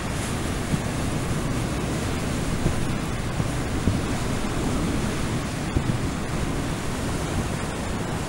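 Heavy storm surf breaking on a rocky shore: a steady low rush of crashing waves, with wind on the microphone adding small low thumps.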